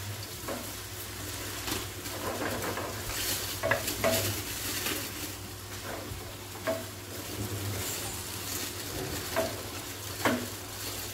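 Spaghetti frying in oil in a non-stick frying pan, sizzling steadily while a wooden spatula stirs and scrapes it. Now and then the spatula knocks against the pan.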